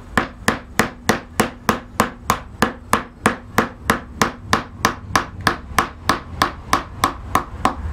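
Mallet striking a carving gouge as it cuts into quarter-sawn oak: a steady run of sharp taps, about three a second.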